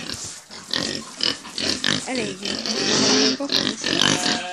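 A group of domestic pigs grunting and squealing in short, irregular calls, the loudest a high squeal about three seconds in.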